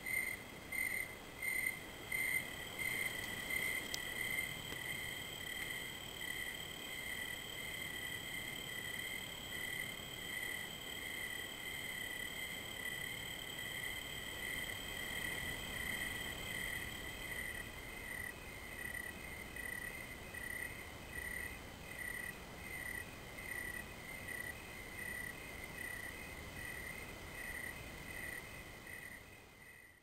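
Crickets chirping at dusk: a rhythmic high chirp about twice a second, with a steady higher trill alongside that stops a little past halfway.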